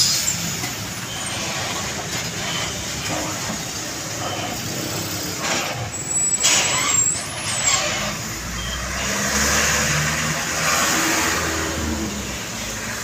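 Heavy diesel trucks passing close by on the road, engines running over tyre and traffic noise. There is a short burst of hiss about six seconds in, and a deeper engine rumble swells from about eight seconds and fades again.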